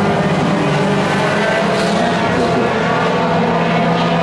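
Several race truck engines running together at speed as the field drives past, a steady loud mix of overlapping engine tones.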